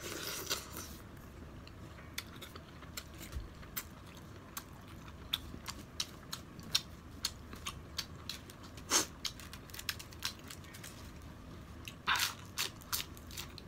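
Close-up eating sounds: chewing with many small crisp mouth clicks and smacks. A louder crunch comes about twelve seconds in as a romaine lettuce leaf is bitten.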